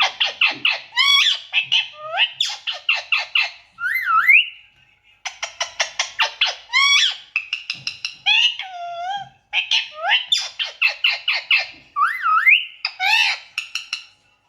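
Female Indian ringneck parrot calling: fast runs of short sharp chirps mixed with rising, bending squawks. The calls come in three bouts with brief pauses about four and a half and nine seconds in.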